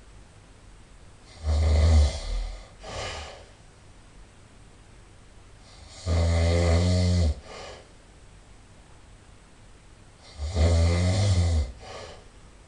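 A person snoring loudly in sleep: three long, low-pitched snores on the in-breath, about four and a half seconds apart, each followed by a short, quieter breath out.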